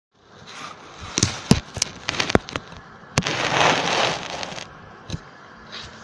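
Handling noise from the recording device being moved and set in place: a quick run of sharp clicks and knocks, then a louder knock followed by a second or so of rustling scrape, and one more click near the end.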